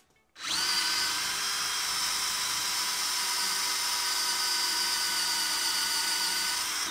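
Cordless drill running steadily with a center drill boring into a broken screw. The motor whine starts suddenly about half a second in with a quick rise in pitch, holds steady and stops at the end.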